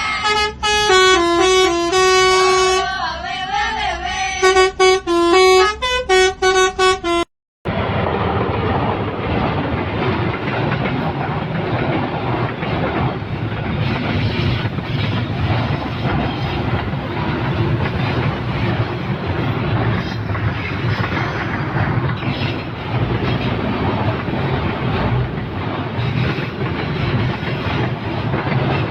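A multi-trumpet telolet horn plays a stepping melody of held notes for about seven seconds, then cuts off abruptly. A steady rushing noise with a low rumble follows.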